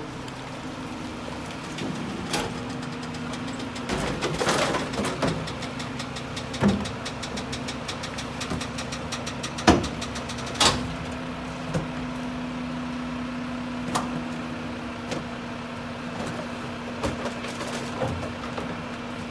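Heil split-body rear-loader garbage truck's engine idling steadily, with clanks and rattles as recyclables and cardboard are tipped by hand from bins into the hopper. There is a cluster of rattling about four seconds in and two sharp bangs about ten seconds in.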